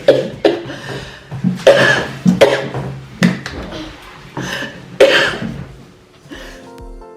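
A person coughing hard and hoarsely, about eight coughs in quick fits: the staged coughing-up of food in a mukbang prank. Background music starts near the end.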